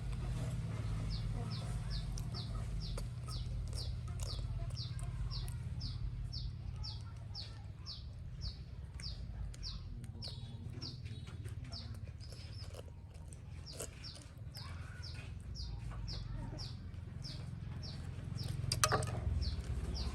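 A bird chirping over and over: short high calls, each falling slightly in pitch, about two a second, over a low steady hum. A louder rustling noise comes near the end.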